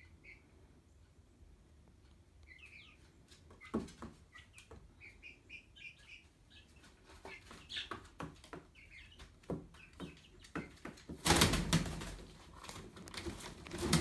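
Silver Wyandotte chicken giving short soft chirping calls while its feet click and scratch on cardboard, then a loud burst of wing flapping lasting about a second, starting about eleven seconds in.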